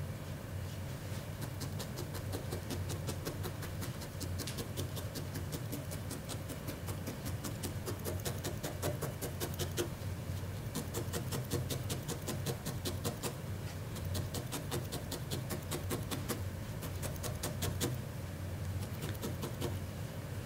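Felting needle stabbing repeatedly into wool: a continuous run of quick, soft pokes, several a second, packing loose brown wool fibres down onto a bat's felted base shape.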